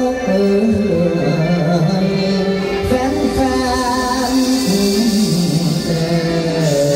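Stage music in a Thai classical style with singing: a slow melody of long held notes that step between pitches.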